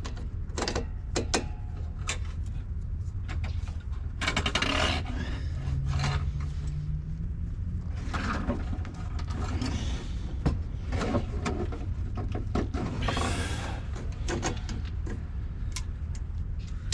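Hands and tools working on a car's exhaust pipe: scattered clicks and knocks with several longer scraping, rubbing noises, over a steady low hum.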